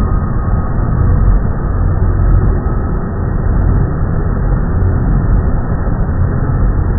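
Big-rig semi tractor's diesel engine working hard, pulling a heavy loaded lumber trailer slowly forward: a loud, steady, deep rumble.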